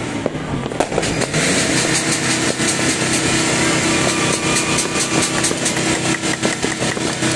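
New Year's Eve fireworks and firecrackers going off all across a city in a continuous dense din, with many sharp pops and cracks coming faster in the second half.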